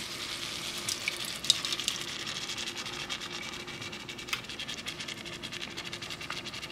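Steady crackling sizzle of chicken cooking in a stainless steel pot on the stove as salsa verde is poured in from a glass jar, over a faint steady hum.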